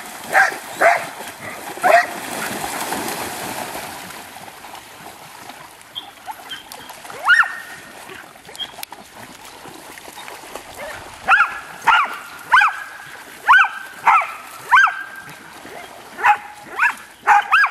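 Dog giving excited, high-pitched yelping barks, a few near the start, one alone mid-way, then a quick string of them in the second half. Early on there is a stretch of splashing as the dogs plunge into the water.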